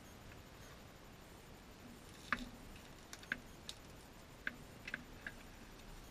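Scattered sharp clicks and light knocks, about eight in irregular spacing, the loudest a little over two seconds in, over a faint steady background: footsteps on rocky ground and dead branches and a long wooden plank being carried.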